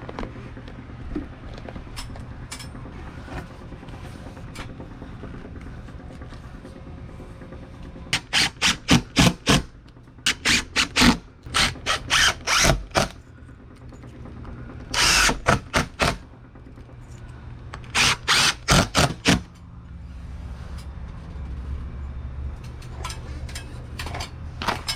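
A power drill run in groups of short trigger bursts, with one longer run of about a second near the middle, over a steady low hum.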